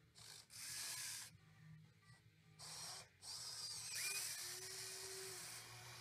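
Radio-controlled model Cat 320D excavator working its arm and bucket in loose dirt: faint stop-start bursts of small-motor whine and scraping, one brief falling whine about four seconds in, then a low steady hum for about a second and a half.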